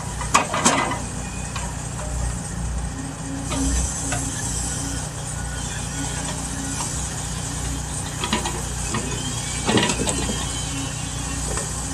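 Caterpillar 579D knuckleboom log loader running steadily as it swings its boom and grapple, with a few sharp knocks near the start and again about ten seconds in.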